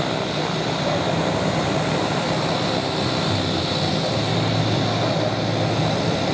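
Pilatus PC-9M's Pratt & Whitney Canada PT6A turboprop idling on the ground with its propeller turning: a steady drone under a high turbine whine. The low drone grows slightly stronger about halfway through.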